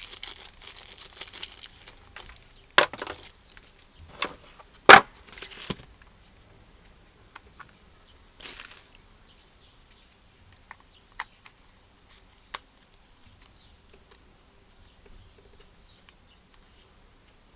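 Packaging being torn and crinkled open, with several sharp crackles and tears over the first six seconds, the loudest about five seconds in. After that there are only scattered soft clicks and taps as the box and its contents are handled.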